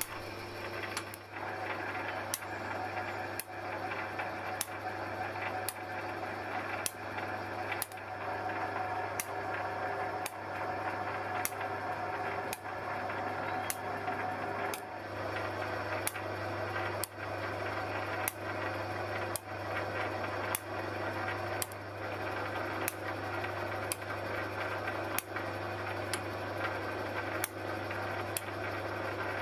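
Lathe running steadily, driving a Eureka form relieving tool that is form-relieving the teeth of a gear cutter, with a sharp click a little more than once a second as the tool's mechanism works tooth by tooth.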